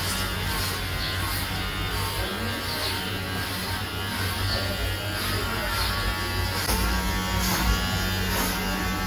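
Electric hair clippers buzzing steadily as they cut hair, with a low hum, over background music.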